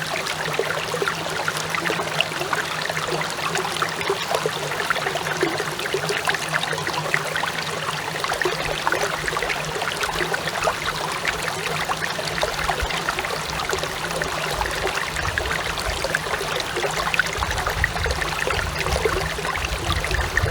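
A clear stream babbling and splashing steadily over rocks, picked up by a small plug-in smartphone microphone, with a steady low hum underneath that the uploader hears as noise mixed into the recording. A low rumble joins in near the end.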